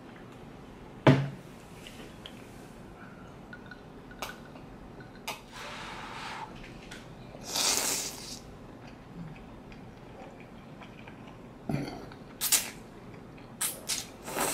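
Close-up eating sounds: two long slurps of spaghetti with meat sauce around the middle, then short wet smacks and clicks of chewing and cutlery near the end. A sharp knock about a second in is the loudest sound.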